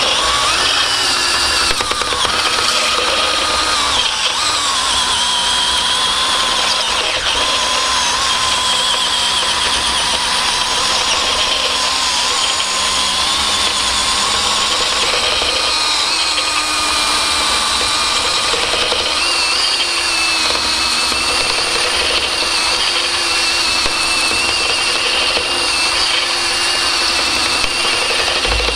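Cordless drill running steadily under load, drilling out the old bushing from a rusted leaf-spring hanger; a continuous motor whine that wavers slightly in pitch as the bit bites.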